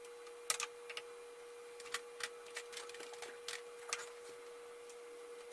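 Faint, irregular clicks and light taps of small objects being handled and put away, over a steady faint hum.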